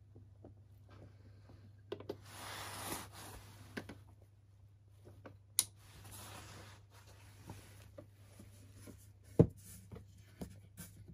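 Handling of a suitcase record player: scattered small clicks as the tonearm is set back on its rest, then a single sharp thump about nine seconds in as the case lid is shut, over a faint steady hum.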